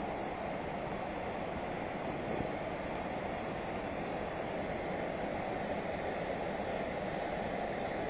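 Steady rush of a waterfall: an even noise of falling water with no breaks.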